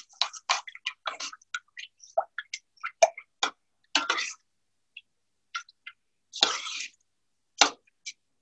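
Utensil stirring rice, water and coconut milk in a pot: irregular short clinks and scrapes against the pot, with one longer scrape about six and a half seconds in.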